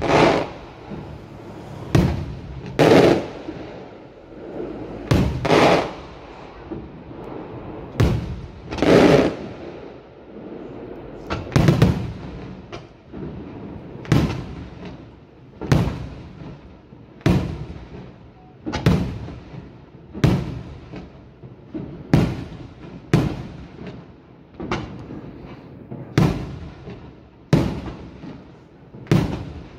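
Maltese aerial firework shells bursting in a long, steady barrage of loud bangs, about one a second and sometimes two in quick succession, each trailing off in echo.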